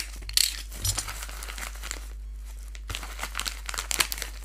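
Plastic bubble mailer being cut open with a utility knife and pulled apart: the plastic crinkles and tears in short, irregular crackling bursts.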